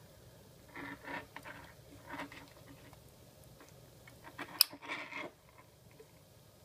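Handling noises: a few short rustling scrapes, then one sharp click about four and a half seconds in, followed by a brief scrape.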